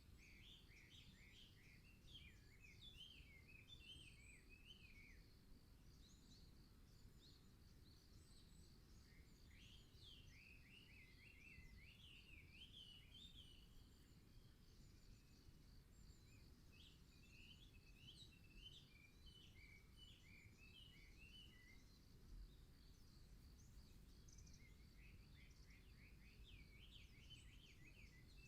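Faint songbird singing in four long phrases of quick, warbling notes, each several seconds long with pauses of a few seconds between, over a steady high-pitched background trill and a low rumble.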